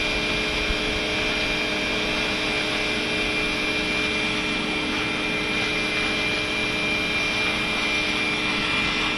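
Shop vacuum running steadily, a constant motor whine over the rush of air through the hose, as it sucks loose debris out of a concrete deck joint.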